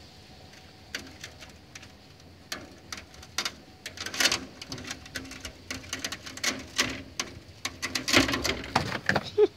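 A cat's claws catching and scraping on a window screen as it clambers across it: a run of quick, scratchy clicks, sparse at first, then denser and louder through the second half.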